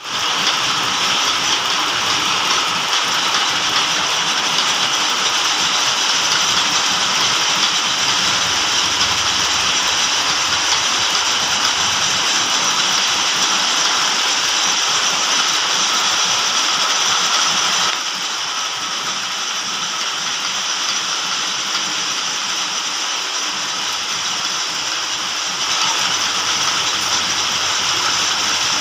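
Metal lathe running and turning the outside diameter of a workpiece: a steady, high-pitched mechanical whir. It gets a little quieter a bit past halfway and comes back up near the end.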